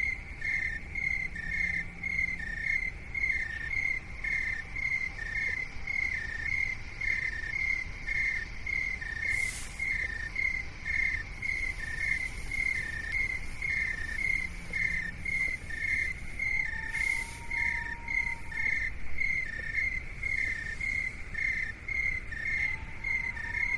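Insect chirping in a fast, perfectly even rhythm, a little over two chirps a second, alternating between two slightly different pitches over a steady low rumble of noise. Twice in the second half a soft tone rises and falls under it.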